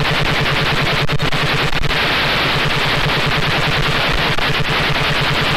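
Radio static from an analog FPV video downlink with a weak or lost signal: a steady hiss with a rapid, even buzzing pulse underneath.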